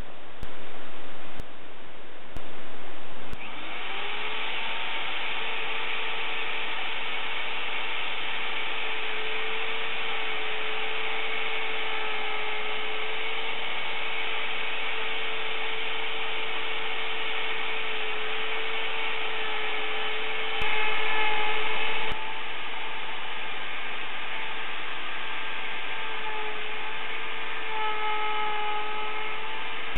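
A few sharp clicks, then a Bosch plunge router spins up about three seconds in and runs at a steady high whine while routing a mortise in wood. Its pitch sags slightly a few times as the bit loads up in the cut.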